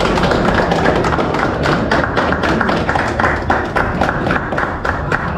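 Crowd clapping in a steady rhythm, about four claps a second, over a busy background hubbub.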